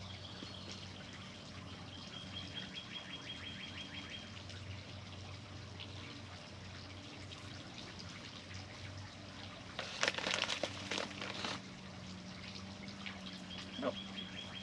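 Hands working a succulent into potting mix and stones, with a brief scraping, rustling clatter about ten seconds in and a few sharp clicks near the end. A high, rapid trill comes and goes over a steady low hum.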